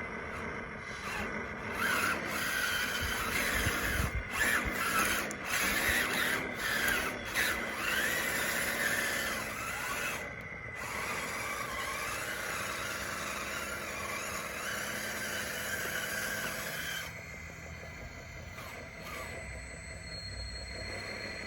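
DXR2 radio-controlled model bulldozer working, its drive motors whining with squeals that waver up and down in pitch, along with rasping and scraping. The sound settles to a steadier whine about halfway through and drops off in level near the end.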